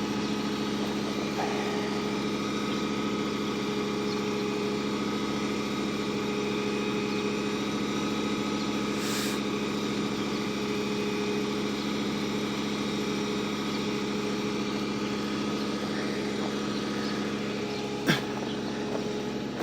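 A vehicle engine idling steadily, with a single sharp knock near the end.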